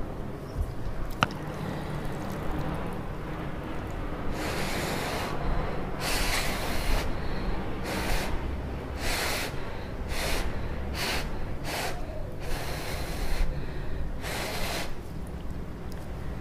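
A person slurping up instant ramen noodles: a run of about nine short, hissing slurps from about four seconds in. There is a single sharp click about a second in.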